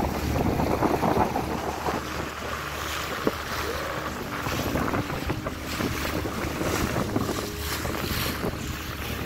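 Small rental motorboat under way: a steady low engine hum under the rush of water along the hull, with wind buffeting the microphone in gusts.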